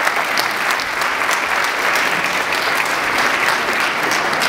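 Congregation applauding steadily, many hands clapping together.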